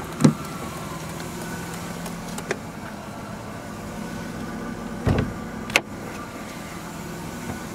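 1998 Plymouth Voyager's driver door handle clicking and the door opening, then the hood-release lever being pulled: a low thud about five seconds in and a sharp click a moment later as the hood latch lets go. A steady low hum runs underneath.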